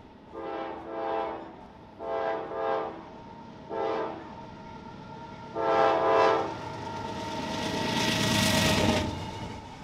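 A CSX diesel locomotive's air horn sounds four blasts, long, long, short, long: the grade-crossing signal. Then the locomotive rumbles past close by, swelling loud and dropping off sharply about nine seconds in, with freight cars rolling behind it.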